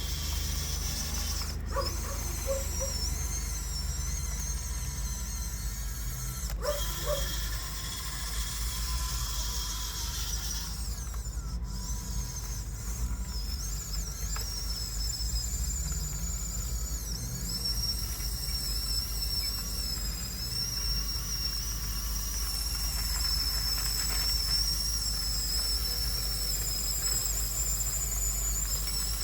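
Huina 1554 RC bulldozer's electric drive motors and gearboxes whining at a high pitch that rises and falls as it works, over a steady low rumble, with a couple of sharp clicks in the first seven seconds.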